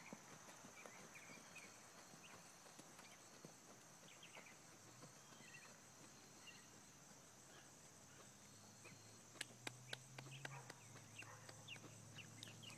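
Faint outdoor quiet with a steady high insect drone and scattered bird chirps. A horse trotting on arena sand is faint in the distance, and a few sharp clicks come about nine to ten seconds in.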